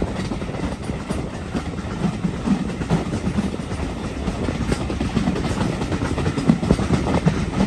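Heritage railway carriage running along the track: a steady low rumble with wheel clatter over the rails.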